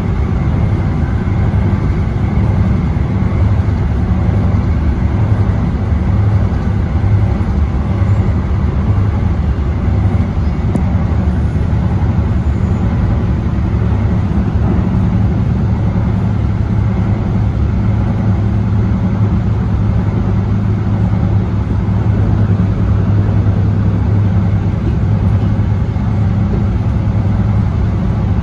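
Steady low rumble of a DART electric light rail train running along the track, heard from on board.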